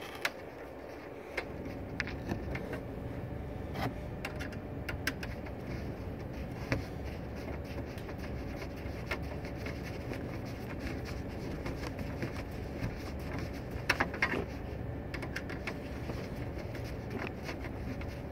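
Scattered sharp metallic clicks and taps from a screwdriver and hands working the screws of a small metal electronics case, over a steady background hum that steps up about a second in.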